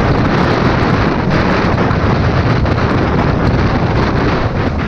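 Loud, steady wind rush buffeting the microphone, heaviest in the low end, with a few faint ticks over it.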